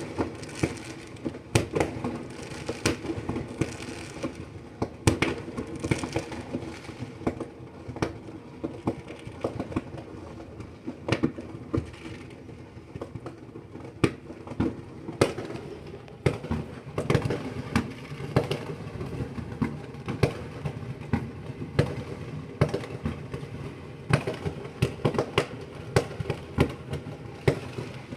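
Fireworks going off: many irregular sharp bangs and crackles, sometimes several a second, over a steady rumbling haze.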